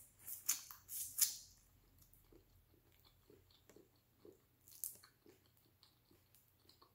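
Close-miked mouth sounds of a person eating shrimp: a few sharp, crisp bites in the first second or so, then quieter steady chewing about twice a second.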